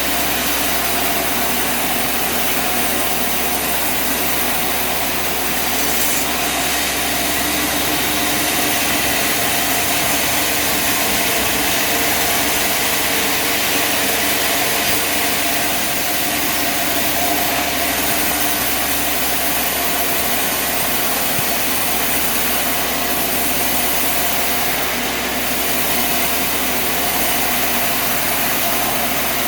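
An engine running steadily under a constant mechanical hiss, with no change in speed over the whole stretch.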